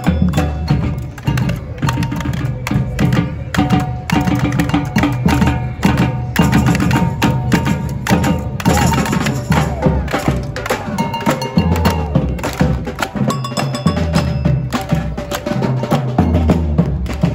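Samba-style street percussion band playing a fast, steady rhythm: large surdo bass drums under small hand-held drums struck with sticks.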